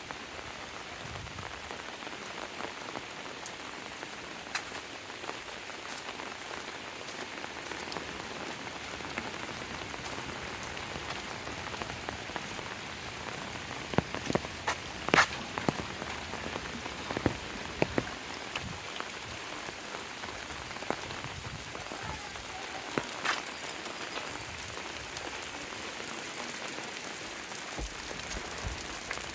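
Steady rain falling, with scattered sharper drip and tap sounds that come thickest about halfway through.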